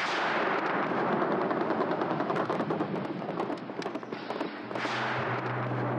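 Battle sound: rapid gunfire crackling over a steady rushing noise. A low held note of music comes in about two-thirds of the way through.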